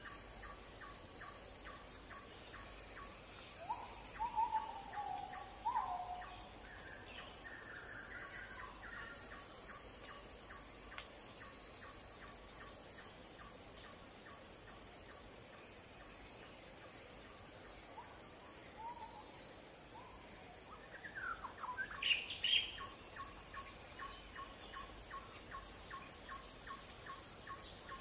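Insects making a steady high ringing, with a fast, even ticking pulse through the first half. Birds call over it: a few falling notes about four to six seconds in, and louder, sharp rising calls around twenty-two seconds in.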